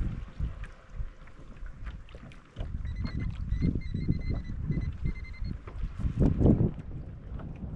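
Strong wind buffeting the microphone in gusts, a rumble that rises sharply about two and a half seconds in, with a faint broken high whistle through the middle.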